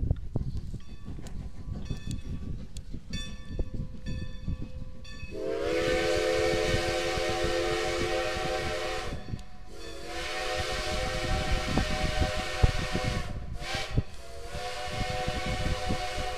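Baldwin 2-10-0 steam locomotive's whistle, sounding several notes at once, blown about five seconds in as two long blasts, one short and a final long one: the grade-crossing signal.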